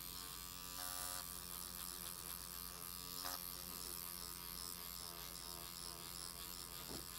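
Electric microneedling pen running steadily against the skin under the eye, a faint, even motor buzz.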